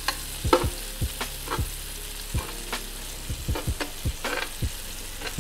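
Shrimp frying in hot oil and butter in a skillet: a steady sizzle with frequent irregular clicks and clinks of a utensil against the pan as the shrimp are turned.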